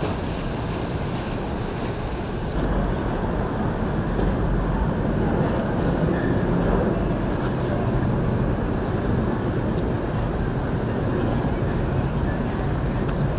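Passing boats running through choppy water: a steady low drone of motors mixed with water wash, with wind buffeting the microphone. The sound changes abruptly a little over two seconds in.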